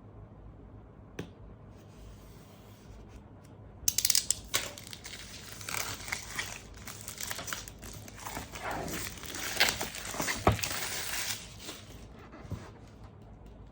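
Packaging wrap being crinkled and torn, with scattered sharp clicks. It starts suddenly about four seconds in and stops near the end.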